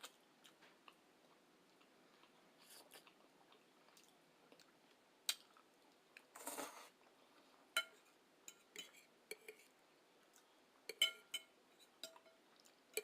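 Faint sounds of eating spaghetti: scattered clicks and clinks of cutlery on a dish, and chewing, with a brief burst of noise about six and a half seconds in.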